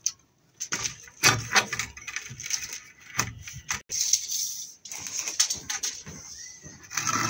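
Hand-tool work on timber formwork boards: a string of sharp knocks and clatter of a hammer and boards, with a scraping hiss about four seconds in.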